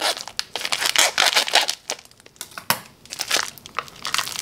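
Plastic zip-top bag crinkling in the hands as it is squeezed and tipped over a bowl to work out the thawed meatless ground inside. The crinkling is dense for the first two seconds, thins out with a few sharp crackles in the middle, and picks up again near the end.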